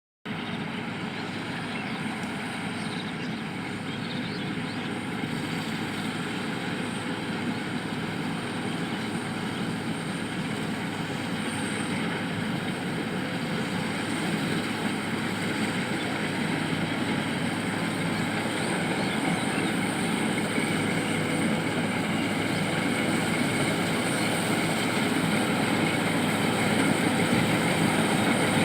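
FieldKing combine harvester running, a steady mechanical drone that grows gradually louder.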